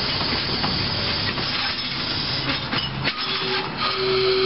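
Narrow-gauge passenger cars and a caboose rolling past, with a steady rumble of wheels on rail and scattered clicks over the rail joints. A steady tone sets in about three seconds in.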